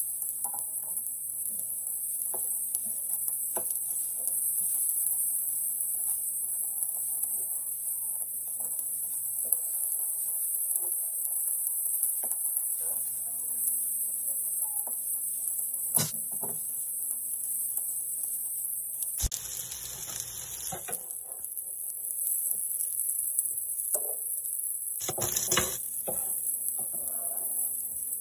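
Steak and chicken cubes sizzling on a flat-top electric griddle, a steady hiss, while a metal spatula and tongs click and scrape against the griddle surface with a few sharper knocks. Near the end the chicken is scraped off and dropped into a stainless steel bowl.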